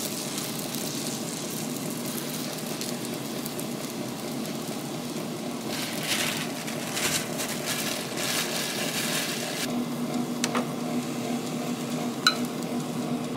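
Food sizzling steadily in a frying pan on the stove, with a couple of sharp taps near the end.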